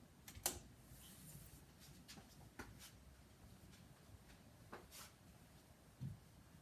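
Halsey GEV ceiling fan running very quietly, barely above near silence, with a few faint scattered clicks and ticks.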